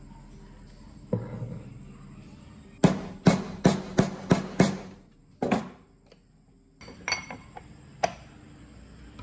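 Hammer driving a ball bearing onto the steel shaft of an electric motor rotor: six quick, sharp metal strikes, then a single one. Lighter clicks follow near the end.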